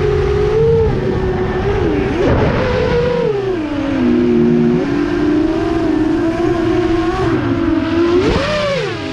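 FPV quadcopter's motors and propellers whining, the pitch rising and falling as the throttle changes, with a quick dip and climb near the end.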